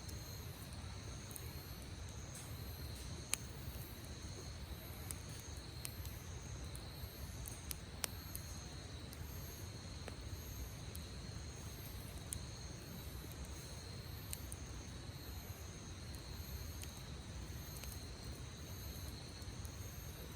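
Crickets chirping in a steady pulsing rhythm over a campfire, with sharp crackles and pops from the burning wood every few seconds.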